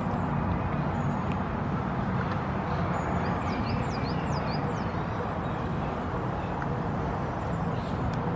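Steady background rumble, with a bird giving a quick series of about six high, thin, down-slurred chirps about three to five seconds in.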